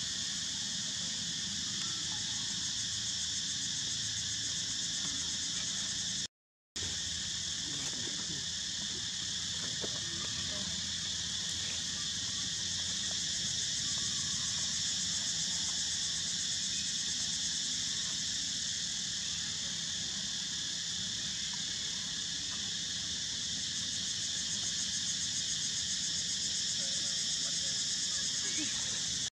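Steady, high-pitched chorus of insects buzzing without a break, dropping out for a moment about six seconds in.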